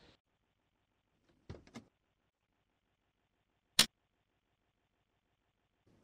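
A few faint knocks in quick succession, then about two seconds later a single sharp, loud click.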